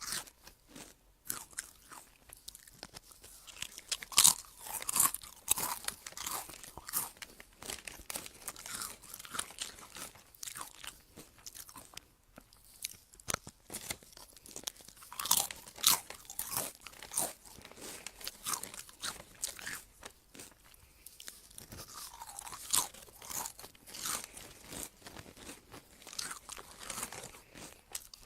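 Close-miked chewing of crunchy food: irregular, crisp crackling crunches that keep going, with a few louder bites.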